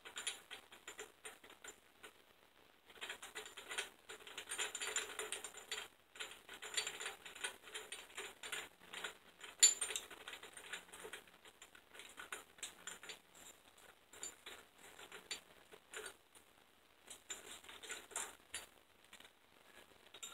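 Hand ratchet clicking in quick runs, on and off, as the rocker arm bolts on a Dodge 318/360 V8 cylinder head are run down, with one sharper metallic click about halfway through.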